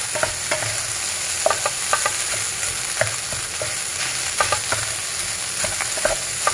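Fried rice with minced meat and carrot sizzling in a frying pan while a wooden spatula stirs and tosses it, with irregular scrapes and taps against the pan.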